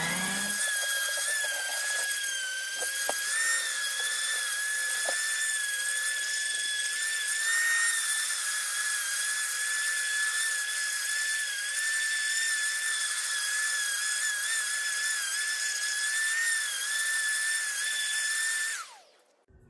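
Electric random orbital sander running with a steady high whine while doing the final 240-grit sand on a white mahogany fence post. Near the end it is switched off and the whine falls away.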